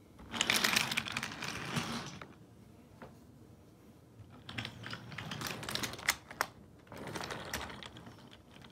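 Wooden toy subway train cars (R46 and R68 models) pushed by hand along wooden track, their wooden wheels rattling and clattering over the track in three spells of a second or two each.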